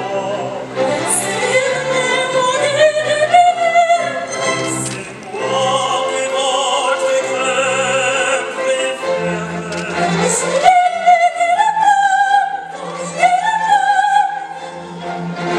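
Operatic singing with a string orchestra accompanying. A woman's voice holds long notes with wide vibrato.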